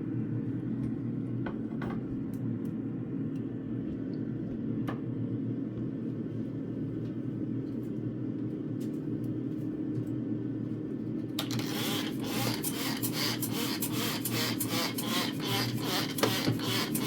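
Rapid scrubbing and rubbing strokes of a cleaning cloth on the fridge's surfaces start about two-thirds of the way in, over a steady low hum, with a few faint clicks before them.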